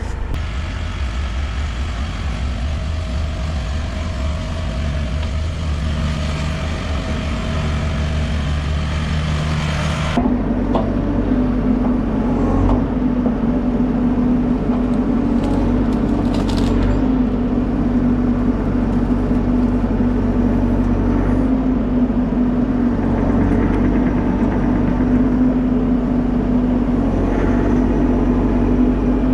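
Diesel engine of compact earth-moving equipment running steadily while brush is loaded and hauled. Its tone changes abruptly about ten seconds in, then holds as a steady drone.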